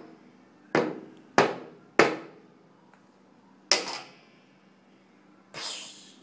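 A toddler beating a Thomas & Friends toy drum with a drumstick: four single strikes at an uneven pace, then a brief noisy sound near the end.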